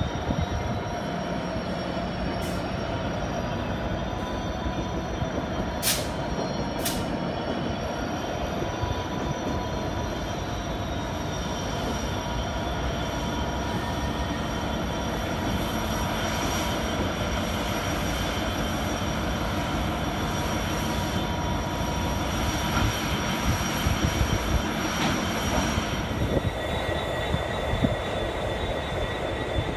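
A line of 82 class diesel locomotives rolling slowly through a yard on curved track, engines running, with steady high-pitched wheel squeal over the rumble. Two sharp clicks sound about six and seven seconds in.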